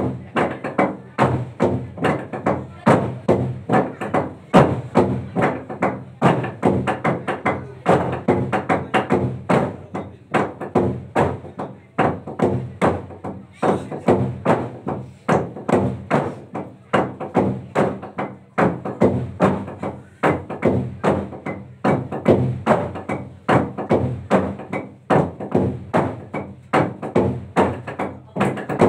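Long hollowed-out wooden log drum beaten by a group of players with handheld wooden beaters: a rapid, unbroken stream of hollow wooden strikes with a resonant low ring.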